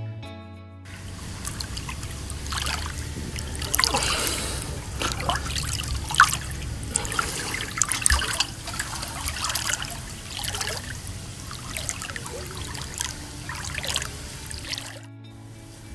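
Water in a swimming pool trickling and lapping, with irregular small splashes and a low steady hum underneath. Soft background music cuts out about a second in and comes back near the end.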